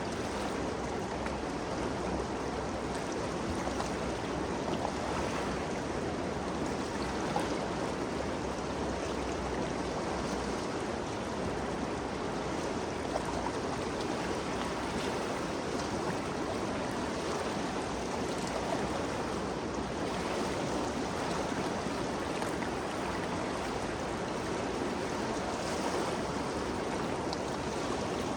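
The Ganges River flowing swiftly, a steady, even rush of water.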